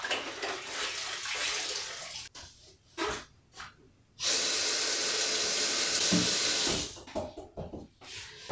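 Kitchen sink faucet running while hands are washed under it. The water stops about two seconds in, with a few short splashes after. It runs again in a steady stream from about four seconds for roughly two and a half seconds.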